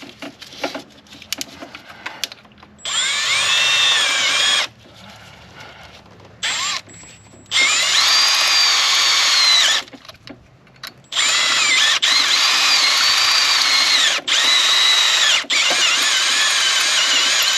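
Power drill running a step bit through the eyelet of the alternator charge-wire terminal to enlarge it, in several bursts of a few seconds each with short pauses between, its whine wavering in pitch as the bit cuts.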